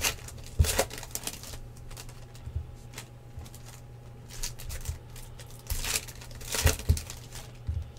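Rustling, crinkling and tearing of trading card pack wrappers and card handling, in short scattered bursts with a few clicks, over a low steady hum.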